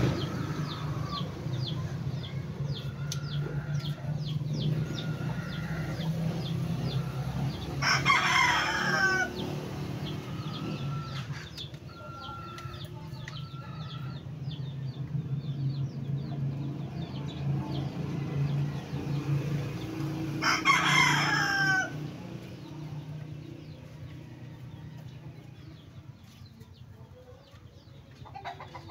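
A rooster crowing twice, about twelve seconds apart, each crow lasting a little over a second and falling in pitch at the end. A steady low hum runs underneath.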